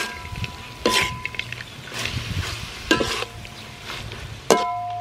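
Metal spatula stir-frying scallops, basil and peanuts in a metal wok: four sharp clanks of the spatula against the wok, each leaving the pan ringing, over a light sizzle of the frying food.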